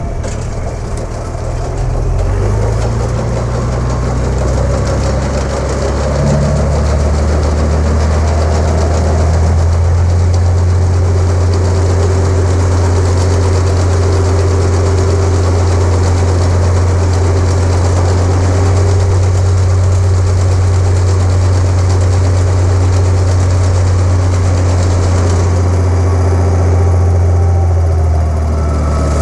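Tractor engine running steadily, driving a New Holland 853 round baler through the PTO with its apron chain turning. The engine note picks up a few seconds in and drops back slightly near the end.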